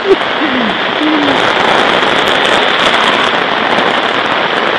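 Steady rain falling, a dense even patter with a crackly edge, and a man's voice giving two short falling sounds in the first second and a half.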